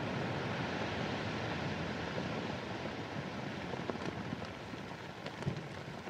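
Tail of a dynamite explosion: a dense hiss of settling debris that slowly fades, with scattered small ticks of falling debris from about four seconds in.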